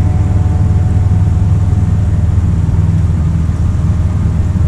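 Dump truck engine running steadily, a low rumble.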